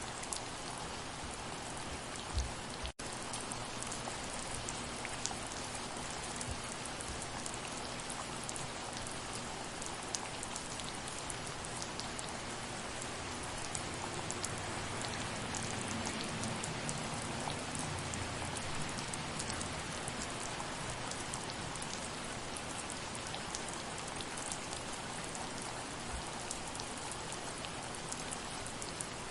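Steady soft rain falling, with individual drops ticking on a surface over an even hiss; the sound cuts out for an instant about three seconds in.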